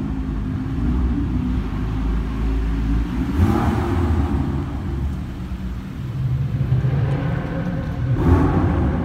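BMW M2's turbocharged straight-six driving past in an underground car park, getting louder as the car passes about three and a half seconds in, then dropping away as it drives off, with another short loud rise a little after eight seconds.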